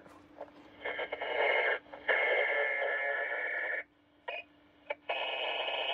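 Tone-generator test signal from a Ranger RCI-2950DX6 transmitting on upper sideband, heard through a CB receiver's speaker as a harsh, noisy tone. It drops out briefly, stops for about a second with a couple of clicks in the gap, then comes back.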